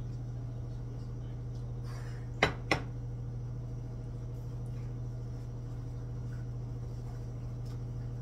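Ceramic bowl set down on a countertop: two sharp clinks about a third of a second apart, over a steady low hum.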